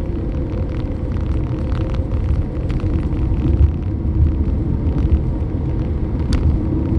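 Steady low rumble of a moving vehicle's engine and tyres on the road, heard from inside the vehicle. There is one short sharp click about six seconds in.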